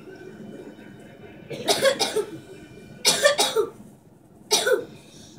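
A person coughing close by in three short fits, each of two or three coughs, about a second and a half apart.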